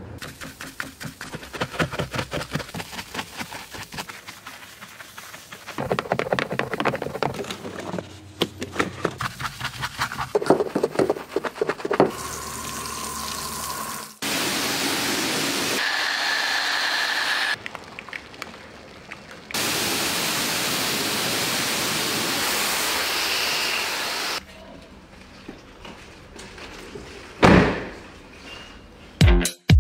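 A run of car-cleaning sounds: quick scratchy strokes for about the first twelve seconds, then water spraying in a steady hiss, with a single thunk near the end.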